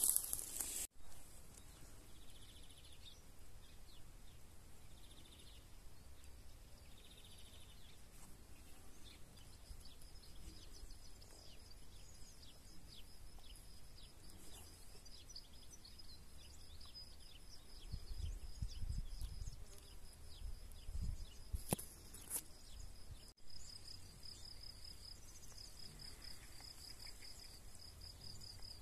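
Faint countryside ambience. A high, steady, pulsing insect trill starts about nine seconds in and goes on, with scattered short bird chirps and a low rumble on the microphone for a few seconds past the middle.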